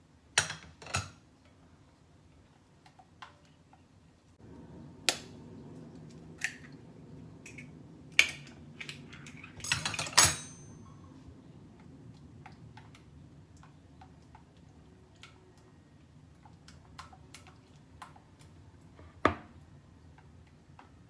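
Kitchen utensils and glass mixing bowls clinking and knocking: a silicone spatula stirring and tapping in a glass bowl, with a quick run of knocks against the glass about ten seconds in and a single knock of glass on glass near the end.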